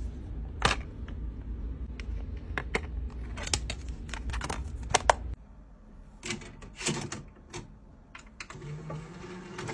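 A plastic DVD case being handled and snapped open, giving a run of sharp clicks and snaps. A few more clicks follow, then a faint low hum near the end as the disc goes into the player's tray.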